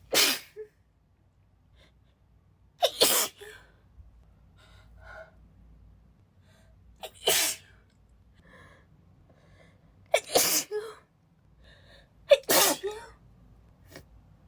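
A woman's sneezing fit: five breathy, spraying sneezes spaced about two to four seconds apart, with faint in-breaths between them. She is still sick with a cold.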